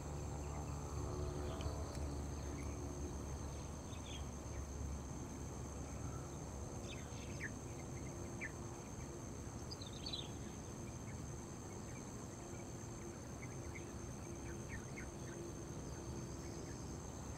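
Insects, crickets by their sound, droning steadily on two continuous high tones at a faint level, with a few short chirps scattered through the middle.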